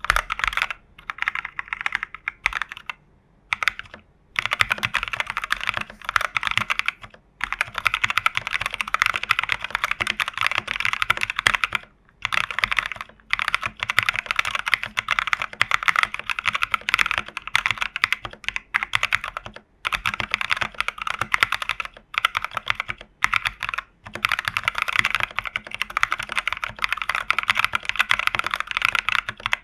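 Typing on a plateless TU40 mechanical keyboard fitted with NovelKeys Cream linear switches, with case foam, PCB foam and a tape mod. Key clicks come in fast runs, broken by short pauses every few seconds.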